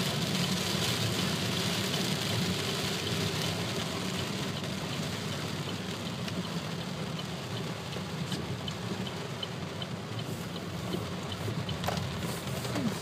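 Heavy rain drumming on a car's roof and windshield, heard from inside the cabin over the steady low hum of the engine and tyres on the wet road, easing a little in the second half.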